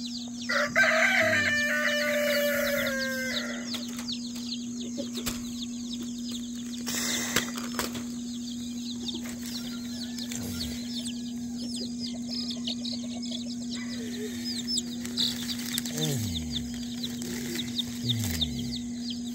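Baby chicks peeping continuously in a brooder pen, with a rooster crowing once, the loudest sound, from about half a second in for nearly three seconds. A steady low hum runs underneath.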